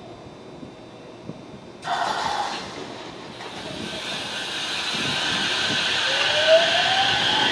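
JR West 227 series electric train pulling away: a sudden hiss of compressed air about two seconds in, then running noise that grows louder as it gathers speed, with a traction-motor whine rising in pitch near the end.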